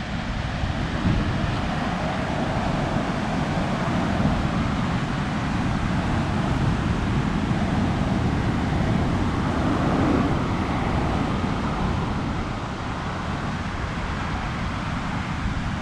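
Wind buffeting the microphone: a steady, loud rumbling noise with no distinct events.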